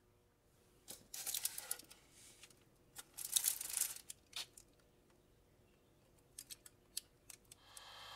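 Two short bursts of crinkling and rustling with scattered light clicks, from handling a foil-lined tray of stuffed shiitake caps. Near the end a steady electric hum from a toaster oven starts.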